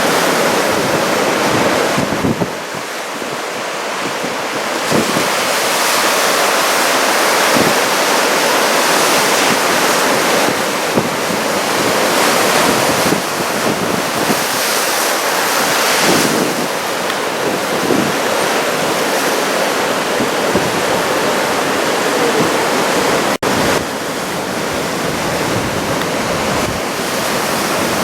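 Heavy surf from a typhoon swell breaking and washing in a steady, loud roar, with wind buffeting the microphone.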